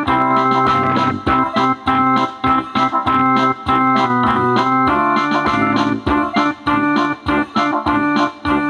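Electronic keyboard playing organ-like sustained chords over a steady programmed beat, the instrumental introduction of a choir song.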